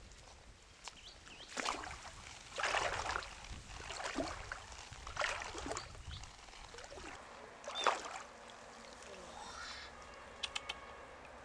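Legs in rubber chest waders wading through shallow stream water: a string of irregular splashes and swishes, about five louder ones, followed by a few light clicks near the end.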